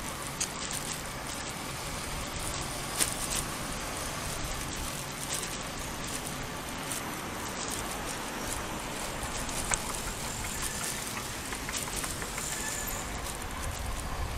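Steady noise of road traffic passing on the adjacent road, with a low rumble underneath and two sharp clicks, about three and ten seconds in.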